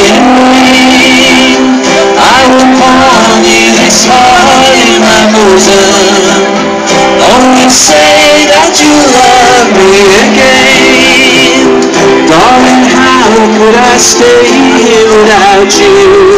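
Country band playing live: strummed acoustic guitar and other plucked strings, loud and steady.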